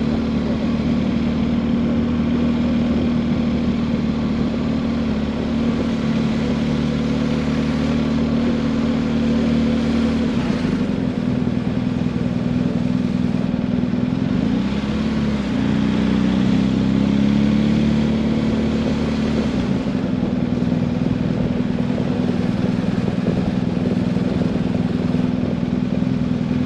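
Motorcycle engine running steadily at low speed, its pitch wavering and shifting between about ten and twenty seconds in as the engine speed changes.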